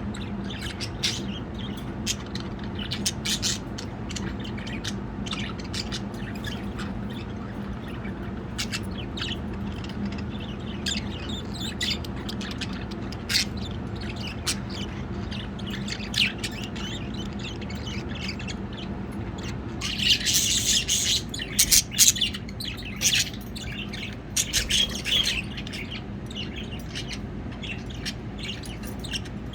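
Budgerigars chirping and chattering in short, rapid calls, which grow busier and louder about two-thirds of the way through, over a steady low hum.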